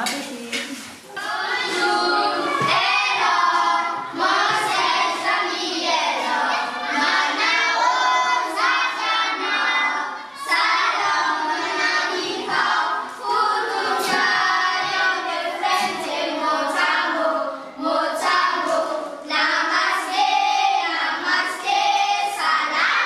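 A group of children singing together, with a few hand claps.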